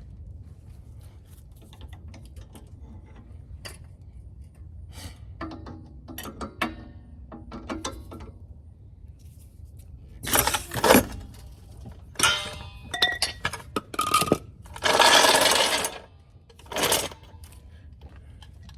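Metal tools and car parts clinking and clattering during brake and wheel work. Scattered light clinks give way to several louder, harsh clattering bursts in the second half, the longest lasting about a second.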